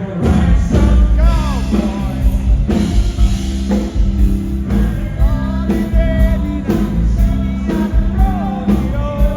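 Rock band playing a song, with a sung lead vocal over drums, bass and keys.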